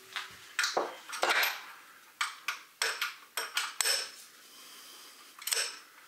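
About a dozen irregular, sharp metallic clicks and clinks of a wrench on the crankshaft bolt of a Mitsubishi 4B11 engine as the crank is turned back slightly. Most of the clicks fall in the first four seconds, with one more near the end.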